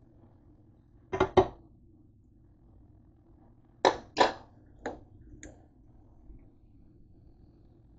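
A cooking utensil knocked sharply against a stainless steel skillet: two quick knocks about a second in, two louder ones about four seconds in, then two lighter taps.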